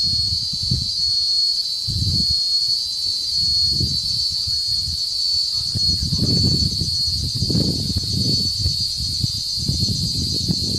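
Cicadas singing in a steady chorus, one continuous high, shimmering buzz. Irregular low gusts of wind rumble on the microphone under it.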